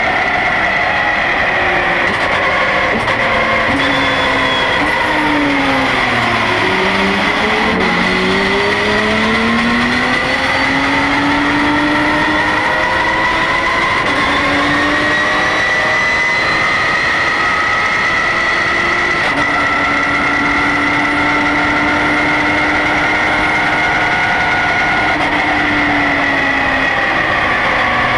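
Porsche GT3 Cup race car's flat-six engine at racing speed, heard inside the cockpit. Its pitch falls in steps through the first eight seconds as the car brakes and downshifts for a corner, then climbs steadily as it accelerates out, with an upshift about two-thirds of the way through.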